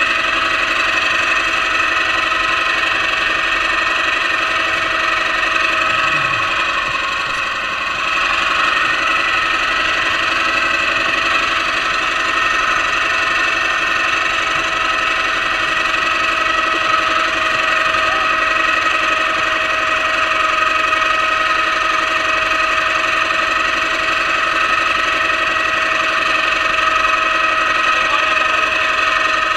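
Small fishing boat's motor running steadily at trolling speed. A few steady high tones sit over an even rushing noise.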